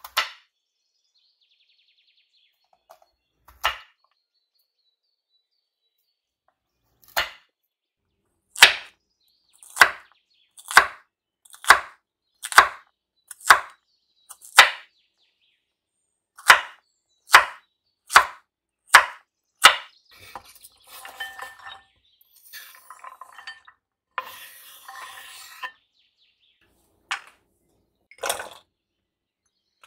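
Knife chopping on a cutting board in slow, single strokes about a second apart, followed by a few seconds of scraping, then two more strokes.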